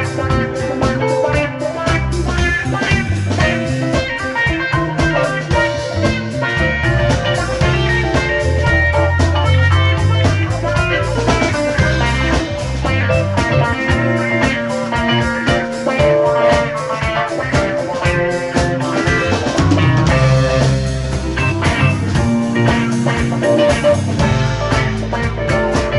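Live rock band playing a groove-based jam: electric guitars over bass and a drum kit.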